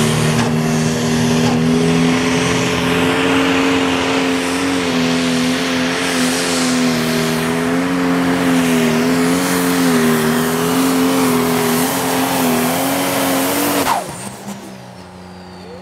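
Pro Stock diesel pulling tractor engine running flat out under load during a pull, its pitch wavering slightly as the load changes. About fourteen seconds in, the throttle is shut and the sound drops off suddenly.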